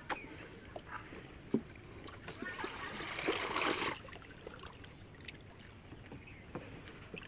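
Water sloshing and splashing around a small boat in a canal, with scattered light knocks and a louder rushing splash about three seconds in that lasts roughly a second.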